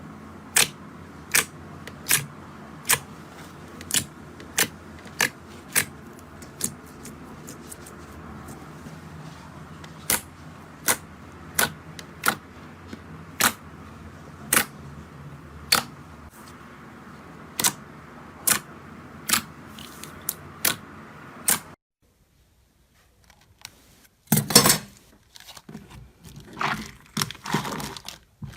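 Slime being handled: a run of sharp clicks or pops, roughly one a second with a pause of a few seconds partway through, over a steady hiss. After a short silent break, louder irregular crackling starts.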